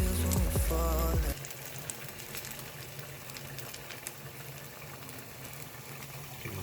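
Background music that cuts off about a second in, followed by a faint, steady sizzle with small crackles from chips and egg frying in oil in a pan.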